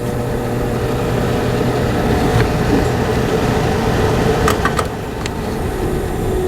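400 CFM range hood fan motor spinning down after being switched off, a steady hum over a rumbling whir, with a few light clicks a little past the middle.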